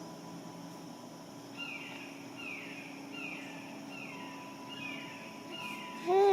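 A bird calling outdoors in a repeated series of short, downward-slurred whistled notes, about one every second. Near the end an infant lets out a loud babbling vocal sound.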